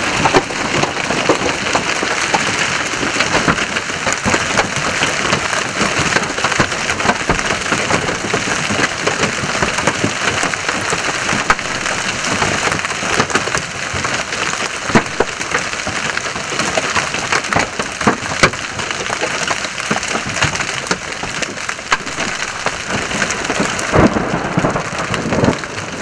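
Large hail, golf-ball to tennis-ball size, pounding down in a heavy storm: a dense, steady clatter of hailstones striking the road and cars, with many sharp separate cracks of single stones.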